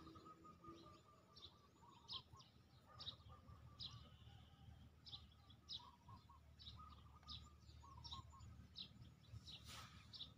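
Faint outdoor ambience of small birds chirping: short high chirps repeating every half second or so, over a faint steady thin tone and a low rumble.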